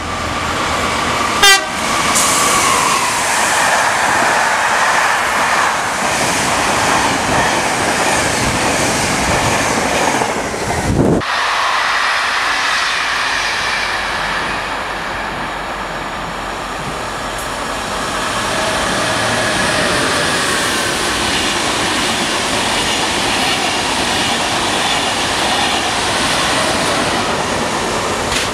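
Electric passenger trains passing through suburban stations: a steady run of wheel and rail noise with clicking over the rail joints. A horn sounds near the start. The sound breaks off abruptly about eleven seconds in, and a second passage follows.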